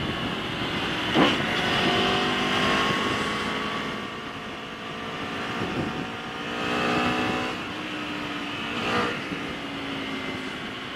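Aprilia Tuono V4 1100 Factory's V4 engine heard from the rider's seat, pulling at road speed with its pitch climbing over two stretches of acceleration, under steady wind rush.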